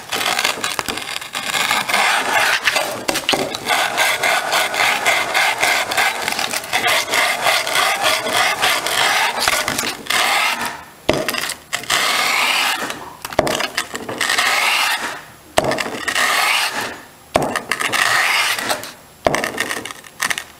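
Aluminium Amal Monoblock carburettor's inlet flange rubbed back and forth face down on 180-grit wet-and-dry paper over a glass board, lapping the O-ring sealing face flat: a steady abrasive scraping. About halfway through it breaks into separate strokes with short pauses.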